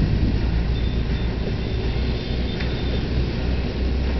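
Hyundai Robex 140-9 excavator's diesel engine idling with a steady low rumble while the machine stands still.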